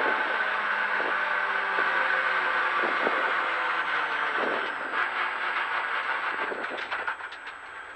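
Renault Clio R3 rally car's 2.0-litre four-cylinder engine and drivetrain heard from inside the cabin as the car slows after the stage. The engine note slowly drops and fades, and scattered clicks and knocks come through in the second half.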